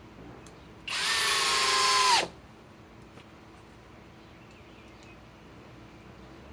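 Flex FX1231 compact hammer drill's motor whining steadily as it drives a 4-inch Grip-Rite screw in one run of about a second and a half. It gets louder as the screw sinks, then stops abruptly with a quick drop in pitch.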